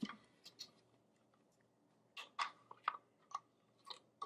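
Spatula scraping dressing out of a plastic food processor work bowl: a handful of short, separate scrapes and clicks, bunched in the second half, with a couple of light clicks of the bowl being handled near the start.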